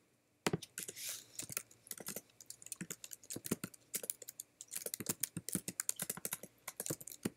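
Typing on a computer keyboard: a quick, uneven run of key clicks that starts about half a second in.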